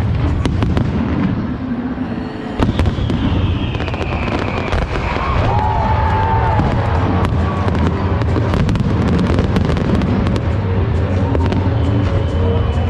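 Aerial fireworks display: a continuous run of bangs and dense crackling from bursting shells over a low rumble of booms.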